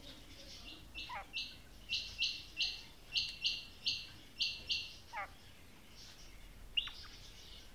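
Female quail calling: a run of about a dozen short, high notes, roughly three a second, with two lower notes sliding downward mixed in and a single sharp note near the end.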